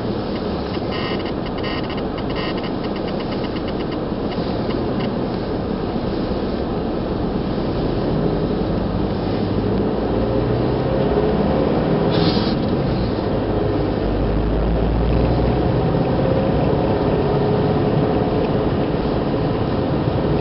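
Car engine and road noise heard inside the cabin while driving on a wet road, with the engine note rising and falling gently as it climbs. A light rapid ticking in the first few seconds and a brief crackle about twelve seconds in.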